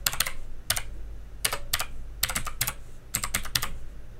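Typing on a computer keyboard: several short runs of keystrokes with brief pauses between them.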